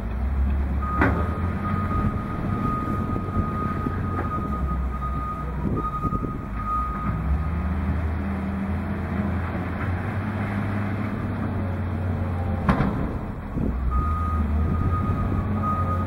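Wheel loader's diesel engine running steadily, with a reversing alarm beeping from about a second in until about 7 seconds, and again from about 14 seconds. Two sharp knocks stand out, about a second in and near 13 seconds.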